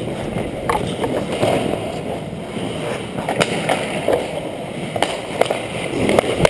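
Hockey skates scraping and carving on rink ice in a steady rush, with a few sharp clacks on the ice scattered through.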